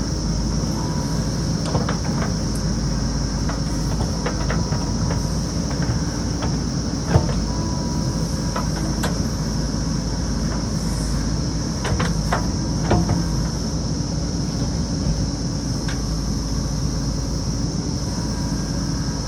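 JCB backhoe loader's diesel engine running steadily, with scattered sharp knocks from the machine's work: the loudest about seven seconds in, several more around twelve to thirteen seconds.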